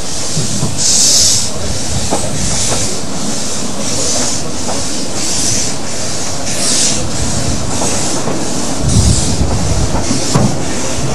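Narrow-gauge steam locomotive hauling a train away from a station, heard from a carriage: a hissing exhaust chuff about once a second over the rumble and clicking of the carriage wheels on the rails.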